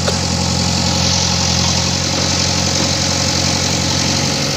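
JCB excavator's diesel engine running steadily at a low, even speed.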